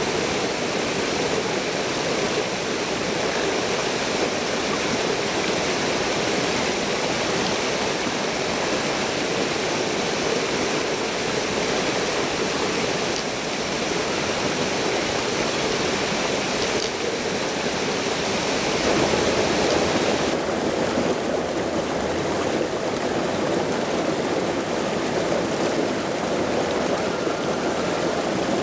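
Steady rush of river water running over rock ledges and small waterfalls. About two-thirds of the way in the rush turns deeper, with less hiss on top.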